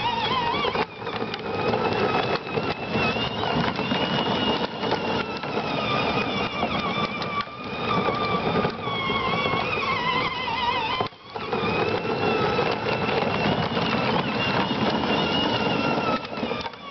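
Battery-powered ride-on toy truck driving on asphalt: the electric motors and plastic gearboxes whine with a wavering pitch over the rumble of hard plastic wheels on the pavement. It cuts out briefly about a second in and again around eleven seconds, as the pedal is let off.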